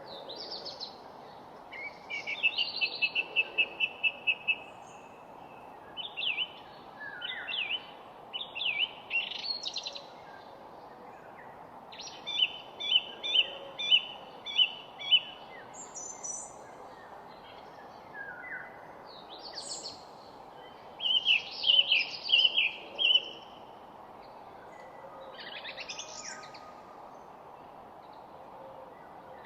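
Songbirds singing in a garden: several phrases of quick repeated chirps and trills, with pauses between them, over a steady low background noise.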